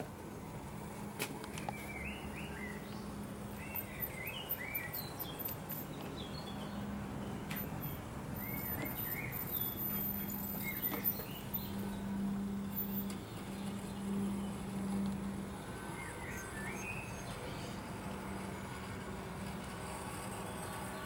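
Small birds chirping over a steady low hum that swells around the middle.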